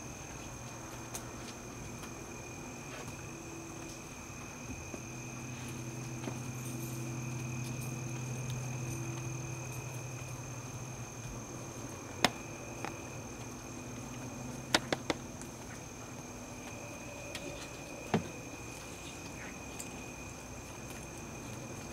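Crickets trilling steadily, a continuous high chorus. A low hum swells and fades in the middle, and a few sharp taps stand out: one about halfway through, three quick ones soon after and another a little later.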